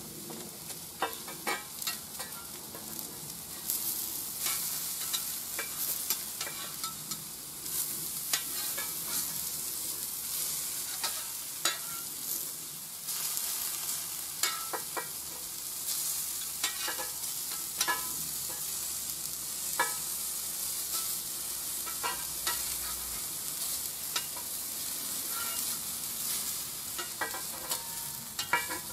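Sausages, halved cherry tomatoes and onion rings sizzling on a hot 8 mm steel hot plate, a steady frying hiss. Short clicks and scrapes of a metal spatula on the steel plate come again and again as the sausages are turned.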